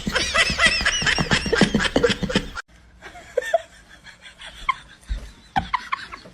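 High-pitched laughter in quick repeated bursts that cuts off abruptly under three seconds in. It is followed by a quieter stretch with a few short, faint squeaks.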